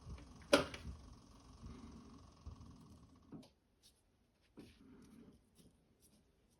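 Small metal lathe turning at very low speed while a tap is fed into a drilled hole: a faint steady motor hum with a thin whine. A single sharp click about half a second in. The hum stops about three seconds in with a small knock, leaving only a few light knocks.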